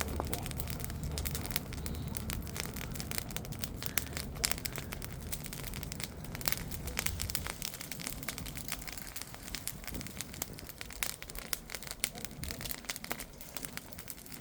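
Bonfire burning with many quick crackles and pops, and a low rumble in the first few seconds.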